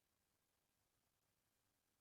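Near silence: the audio track is essentially muted, with only a faint even hiss.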